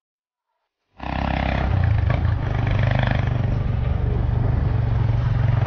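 A motorcycle tricycle's engine running steadily under way, heard from on board. It cuts in abruptly about a second in, after a second of silence.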